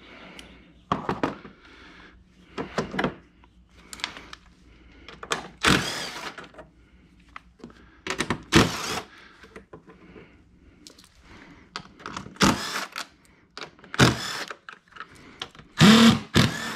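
Cordless drill-driver running in several short bursts, backing out Torx body-panel bolts, mixed with clicks and knocks of plastic trim panels being handled.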